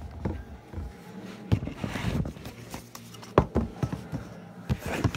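Handling noise from a phone being moved about: scattered knocks and rustles, with a sharper pair of knocks about three and a half seconds in.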